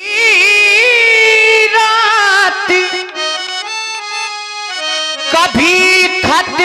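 Harmonium under a male singer's long, wavering held note. Partway through the voice drops out and the harmonium's chord carries on alone. Near the end dholak strokes come in, their bass notes bending in pitch, as the singing starts again.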